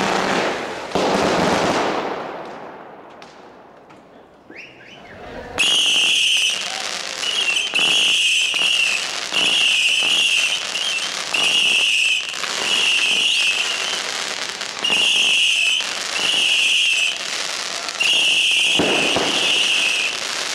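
A ground fireworks battery firing whistling shots one after another, about one a second. Each shot is a steady high whistle lasting about a second, and the run goes on for about fifteen seconds. Before it starts, a loud burst of fireworks bangs and crackle fades away.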